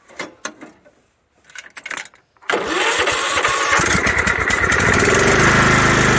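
Riding lawnmower engine cranks and catches about two and a half seconds in, then settles into a steady run. A few clicks and knocks come before it.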